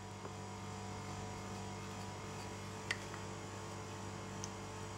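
Steady low electrical hum with faint background hiss, and a single faint click about three seconds in.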